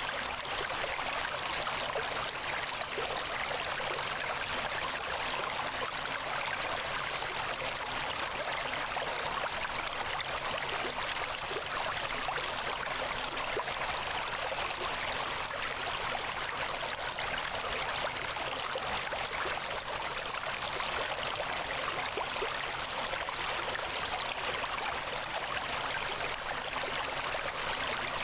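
Steady rushing noise like running water or rain, even and unchanging, with the deep low end cut away. It is the masking background track of a subliminal recording.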